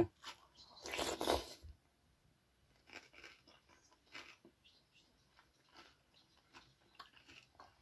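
A person eating borscht off a spoon: a short noisy mouth sound about a second in as the spoonful is taken, then faint, scattered wet clicks of chewing meat with the mouth closed.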